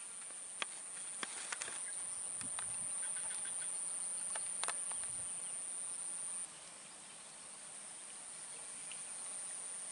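Steady high-pitched insect drone that cuts off suddenly about two-thirds of the way through, leaving a fainter insect drone, with a few faint ticks.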